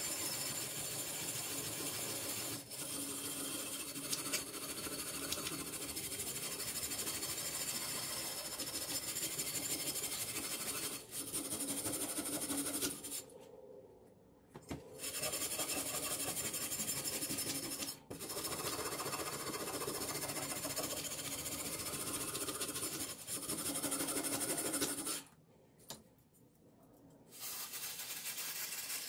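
Rusty steel blade of an old meat axe being scrubbed by hand with an abrasive tool, rapid rubbing strokes scraping off the rust. The scrubbing stops twice for about two seconds, a little before halfway and again near the end.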